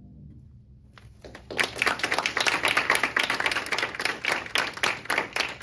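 Audience clapping in applause, beginning about a second in and quickly building to a dense clatter of hand claps.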